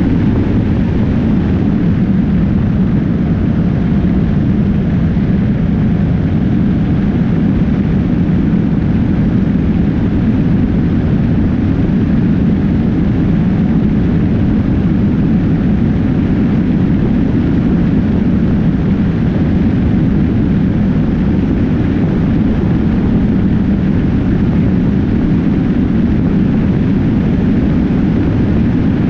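Steady rush of wind and road noise from a motorcycle cruising at highway speed, picked up by a camera mounted low on the bike's side so that wind on the microphone dominates. It is loud and unbroken, with a deep rumble and no changes in pace.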